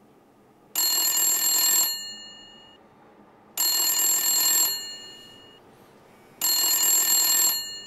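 Telephone bell ringtone of an incoming call on a mobile phone: three rings about three seconds apart, each a second-long bell trill whose ringing fades after it stops.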